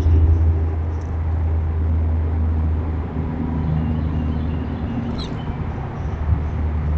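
Steady low outdoor rumble with a few faint high bird chirps, one sharper about five seconds in.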